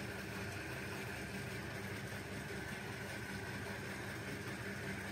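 Kyocera 2040dn laser printer warming up just after power-on, giving a steady mechanical hum.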